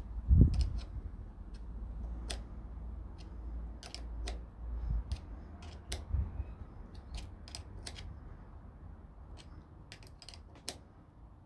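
Irregular light metallic clicks of a small 8 mm spanner being worked round and repositioned on the brake hose's locking nut as it is tightened into a hydraulic brake lever, with a heavy handling thump about half a second in.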